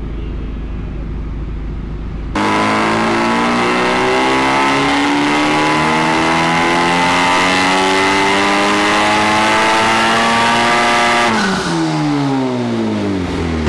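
Honda Civic Type R's turbocharged 2.0-litre four-cylinder making a full-throttle dyno pull. After a low steady rumble, the engine note rises steadily for about nine seconds under load; then the throttle closes and the revs fall away quickly near the end.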